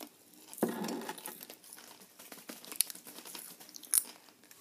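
Popping candy crackling and being chewed in the mouth: scattered small crunches and clicks, with a short louder rustle about a second in and two sharp clicks later on.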